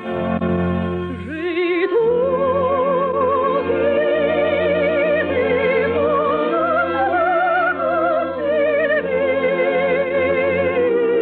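A trained operatic voice sings a slow melody with wide vibrato over orchestral accompaniment, entering with an upward swoop a little under two seconds in. It has the thin, narrow sound of an early-1950s radio transcription.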